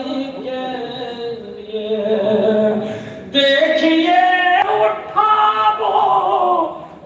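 A voice singing a devotional verse in long, drawn-out, wavering melodic notes through a public-address system, dipping about three seconds in before a fresh, louder phrase begins.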